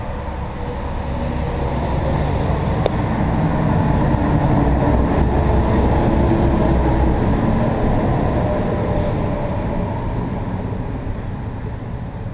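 A steady low rumble that slowly swells to its loudest about halfway through, then eases off again.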